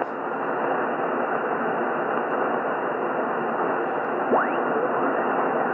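Yaesu FTDX101MP transceiver receiving on 160 metres in lower sideband: steady band noise and static through the receiver's narrow voice passband, with no station audible. A little after four seconds in, a short rising whistle sweeps up as the tuning passes across a carrier.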